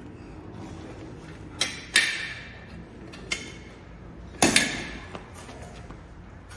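Gym weights clanking: a few sharp metal-on-metal clanks that ring briefly, the loudest a double clank about four and a half seconds in.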